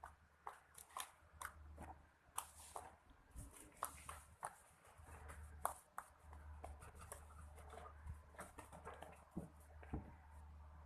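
Slime being handled, giving a run of small, irregular sticky clicks and crackling pops.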